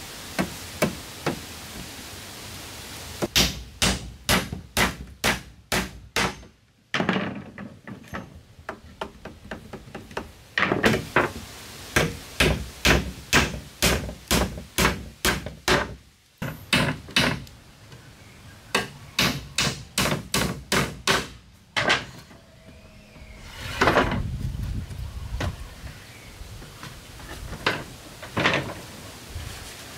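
Hammer driving nails into wooden planks: runs of sharp strikes, about two a second, each run broken off after several seconds. Toward the end the strikes give way to slower, scattered knocks of wood being handled.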